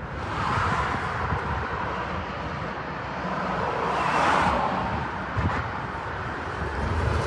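Road traffic going by: a steady noise of passing vehicles that swells twice, most loudly about four seconds in, then fades.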